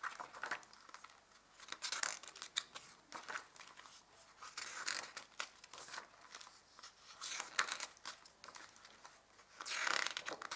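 Stiff pages of a hardcover media book being turned one after another, each turn a brief papery rustle and flick, about every two seconds.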